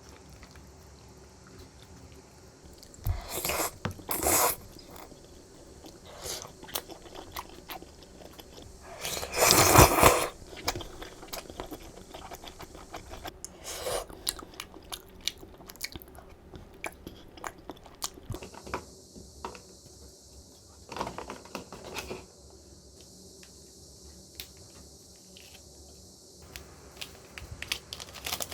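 Close-miked eating sounds: chewing and biting, with many small wet clicks and a few louder, longer bursts, twice about three to four seconds in, loudest around nine to ten seconds, and again around twenty-one seconds.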